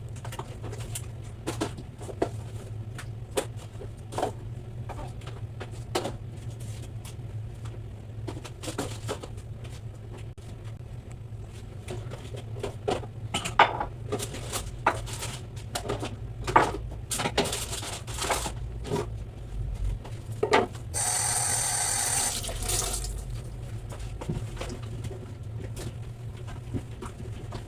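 Household cleaning sounds: scattered clicks and knocks of items being handled, over a steady low hum. About three-quarters of the way through, a tap runs for about two seconds.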